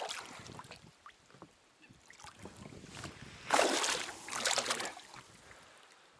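Water splashing with scattered small knocks, then two loud splashes about three and a half and four and a half seconds in.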